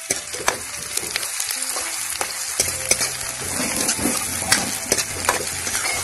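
Chopped onions, garlic, dried red chillies and ginger sizzling in hot oil in a metal kadhai, stirred with a steel ladle that clicks and scrapes against the pan several times. The mix is being fried to brown it as the base of a curry masala.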